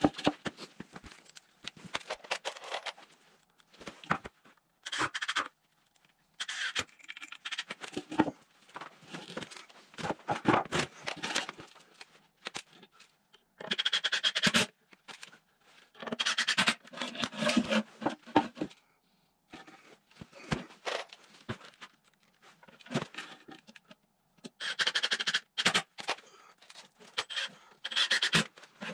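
Cordless driver running in spurts of a second or two, driving screws to join 2x6 boards into a square form. Between spurts, boards scrape and knock on a concrete floor.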